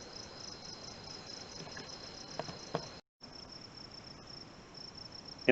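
Crickets chirping in a steady, fast-pulsing high trill, cut off for a moment about three seconds in.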